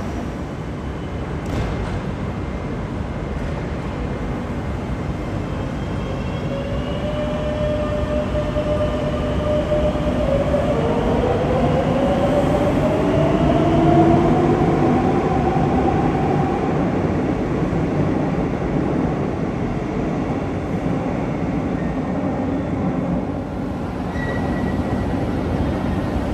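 Madrid Metro series 7000 electric train pulling away from the platform. Its traction motors give a whine that rises steadily in pitch over the low rumble of the running gear, loudest about halfway through.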